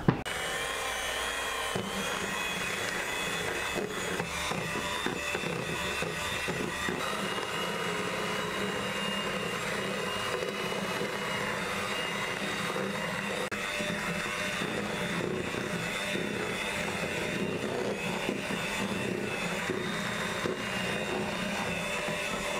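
Electric hand mixer switched on with a click and running steadily with a whine, its twin beaters whipping cream in a plastic bowl.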